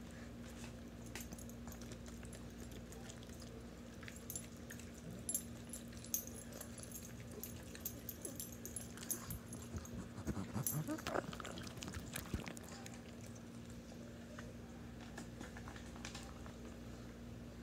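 Pugs chewing, smacking and licking at hand-fed ham, with scattered wet clicks of their mouths. A short rising whine from one dog about ten seconds in.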